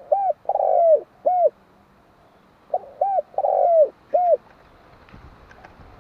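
Spotted dove cooing: two phrases about two and a half seconds apart, each of two short coos, one long coo and a final short coo.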